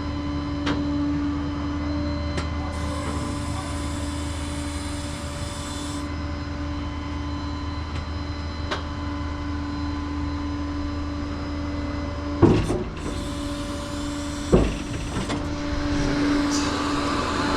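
Tow truck engine running steadily with a constant whine, then two heavy thumps about two seconds apart past two-thirds of the way through.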